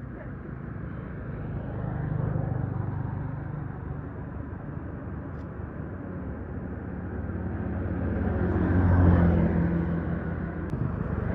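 A motor vehicle's engine running outdoors, a low hum that grows louder to a peak about nine seconds in and then eases off, like a vehicle passing close by.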